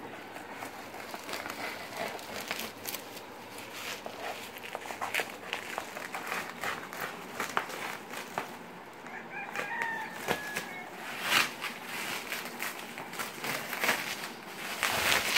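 Bubble wrap and plastic stretch film crinkling as they are cut with scissors and pulled off a flat-pack cardboard box: a run of sharp crackles, loudest about eleven and fifteen seconds in. A short squeak about ten seconds in.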